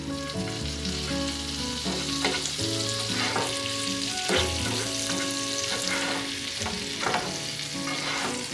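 Grilled cheese sandwiches frying in butter in a nonstick skillet, a steady sizzle. From about two seconds in, a metal slotted spatula scrapes and taps against the pan as the sandwiches are pushed and lifted.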